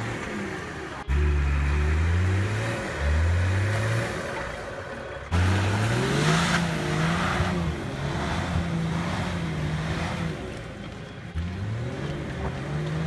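Nissan Patrol GR 4x4's engine revving hard in repeated surges, each rising in pitch, as it churns through deep snow with the wheels spinning. The loudest surge starts suddenly about five seconds in and holds a high steady pitch for several seconds, with a rush of noise from the snow and tyres near six seconds.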